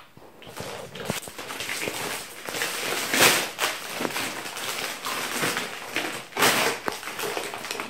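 Aluminium foil wrapper crinkling and crackling as it is pulled open and handled by hand, with louder rustles about three seconds in and again near six and a half seconds.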